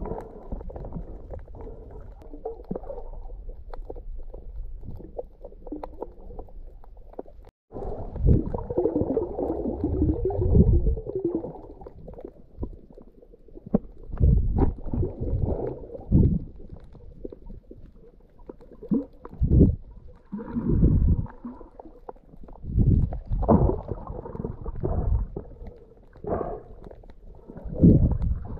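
Muffled water noise picked up by a camera held underwater: low rumbling and gurgling, with irregular louder surges every second or two.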